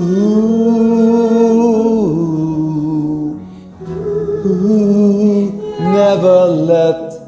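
A woman and a man singing a slow ballad as a karaoke duet over a backing track. It opens on a long held note that steps down to a lower one about two seconds in, then a few shorter phrases follow.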